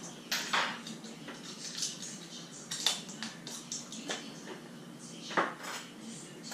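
Kitchen clatter of utensils and dishes: a handful of separate clinks and knocks as things are handled and set down against bowls and the counter, the loudest about five seconds in.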